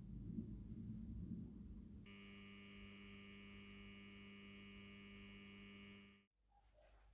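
Faint, steady electrical mains hum, a low buzz with higher tones over it, starting about two seconds in and cutting off abruptly near the end.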